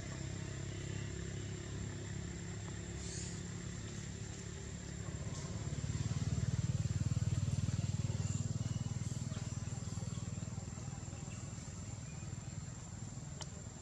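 Engine of a passing motor vehicle: a low, steady hum that grows louder about five seconds in, then fades over the next few seconds.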